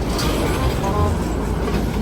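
A large vehicle's engine running with a steady rumble, and a short pitched note about a second in.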